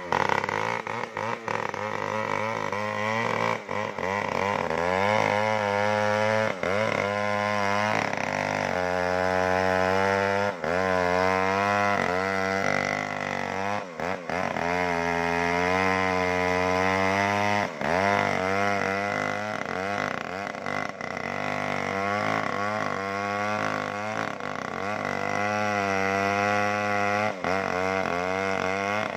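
Large 070-type two-stroke chainsaw, an assembled clone, running at high revs while cutting into a sengon trunk. Its pitch sags under load and climbs back again every few seconds, with a few brief dips.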